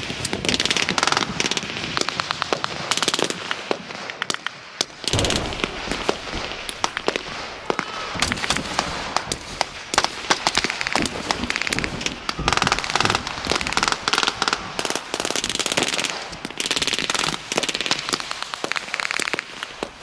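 Small-arms blank fire from many guns at once: a dense, irregular crackle of shots, some coming in quick strings like automatic fire.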